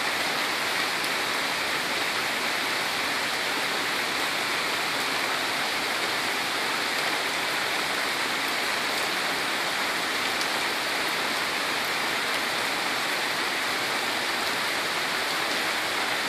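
Heavy rain falling steadily on a lawn and on a street flooded curb-deep, an even hiss throughout.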